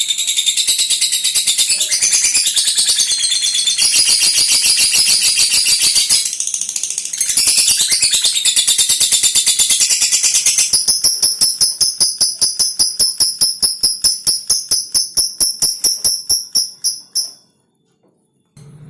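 Lovebird giving a long 'ngekek' chatter: a loud, fast train of high, sharp chirps that slows into separate strokes in its last several seconds and stops abruptly near the end. It is the long, unbroken chatter that keepers use as a calling sound to set other lovebirds chattering.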